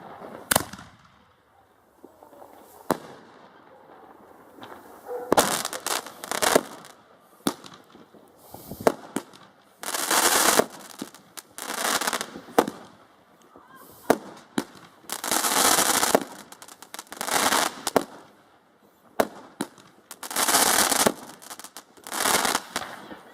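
Consumer fireworks going off: a string of sharp bangs mixed with repeated hissing, crackling bursts about a second long each.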